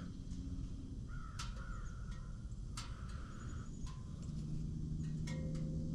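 A bird calling several times, each call drawn out to about a second, with a few light clicks between and a low steady hum coming in during the second half.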